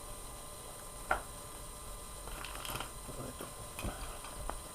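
Light clicks and scrapes of small hand tools and RC shock parts being handled, with a sharper click about a second in, as a screwdriver is fitted into the slot in the end of the shock shaft.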